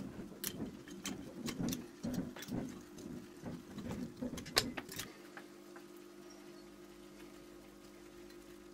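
Fingers handling the opened Canon A-1 camera body and its flex circuit, giving irregular small clicks, taps and rustles, with one sharper click about four and a half seconds in. After about five seconds the handling stops and only a faint steady hum remains.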